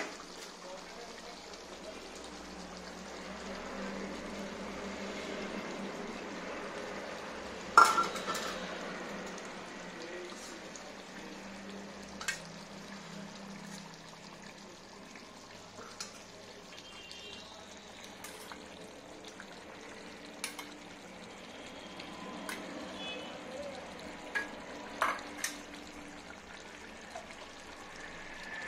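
Steady sizzling from the biryani pot on the stove, with a few sharp clinks of a steel spoon against a small steel bowl and the aluminium pot. The loudest clink comes about eight seconds in, and a quick cluster follows near the end.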